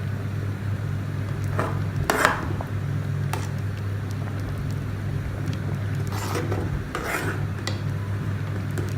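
A spoon stirring and scraping thick champorado in a cooking pot, with short bouts of scraping and clatter about two seconds in and again around six to seven seconds in, over a steady low hum.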